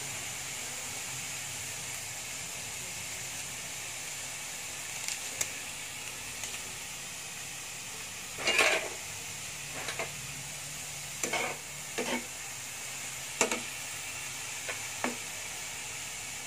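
Sliced bitter gourd frying over low heat in a nonstick pan, with a steady low sizzle. In the second half, a spatula stirs it, scraping and knocking against the pan several times; the loudest stroke is about halfway through.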